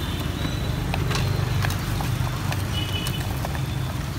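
Street traffic noise with a motor engine running steadily, and scattered light clicks and taps.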